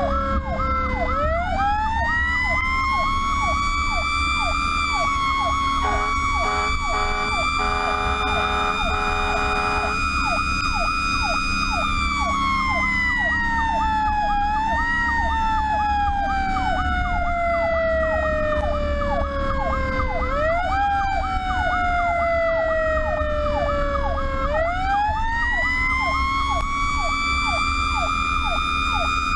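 Pierce fire truck's sirens running on an emergency response: a wailing siren that winds up quickly and falls slowly over several seconds, layered over a fast electronic yelp, with a run of short horn blasts from about 6 to 10 seconds in. The truck's engine runs underneath.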